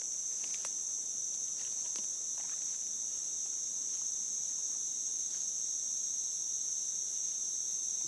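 A steady, high-pitched chorus of forest insects, unbroken throughout. A few faint ticks and rustles in the first couple of seconds, from footsteps through the undergrowth.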